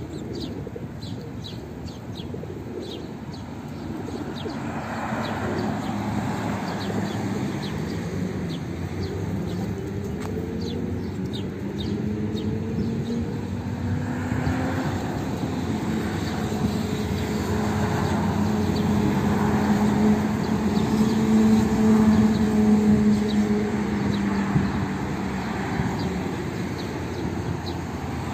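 Feral pigeons of a feeding flock cooing, with quick high bird chirps in the first few seconds. A low vehicle hum swells past the middle.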